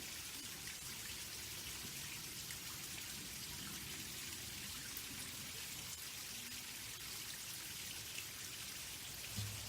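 Faint, steady pattering of water drops falling on a pond.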